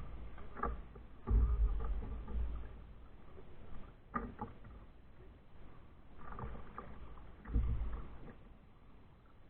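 A kayak out on the water: paddle and water sounds against the hull, with two louder deep surges, one about a second and a half in and one near the end.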